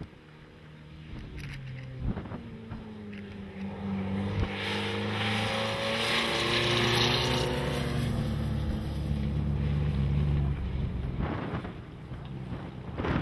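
Off-road rally truck's engine running hard as it drives past. It grows louder over several seconds, then fades away near the end.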